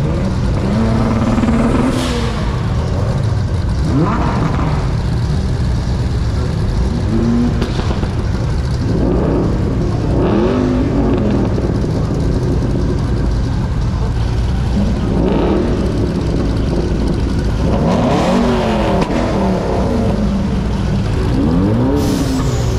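Several modified car engines running over a steady low rumble, with engine notes rising and falling again and again as cars rev and drive past.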